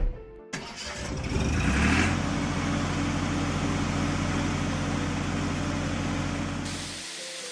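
Vehicle engine sound effect: the engine revs up over the first couple of seconds, runs steadily, and cuts off abruptly near the end.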